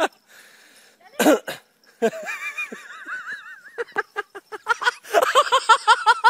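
Excited human voices: a loud short call about a second in, then high, wavering cries and a quick run of rising laughter near the end.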